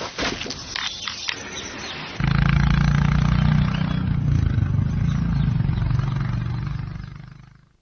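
Exhaust of a next-generation Royal Enfield Classic 350's single-cylinder engine running with a steady deep exhaust note. It starts about two seconds in, after quieter, uneven noise, and fades out near the end.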